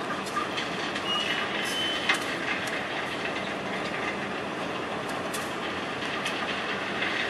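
Loaded ballast hopper wagons of a freight train rolling slowly, discharging crushed stone onto the track, with a continuous rushing noise and scattered metallic clanks. A thin wheel or brake squeal comes about a second in, ending in a louder clank about two seconds in.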